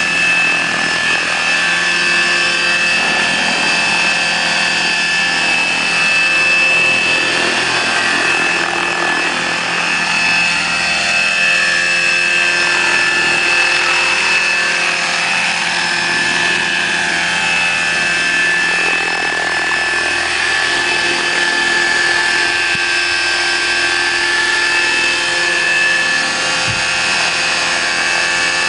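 Electric-powered radio-controlled Bell 214 scale model helicopter with a 1.8 m rotor, hovering: a steady high-pitched whine from its electric drive over the rush of the rotor blades.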